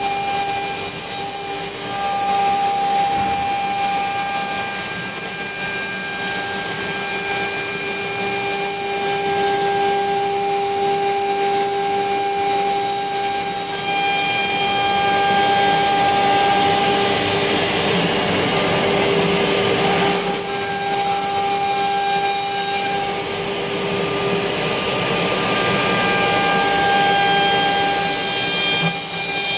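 COMAGRAV NOTUS 1600 CNC router spindle running and cutting grooves in 10 mm plywood, a steady whine over the rush of its dust extraction. The pitch holds while the loudness rises and falls as the cutter travels through the sheet.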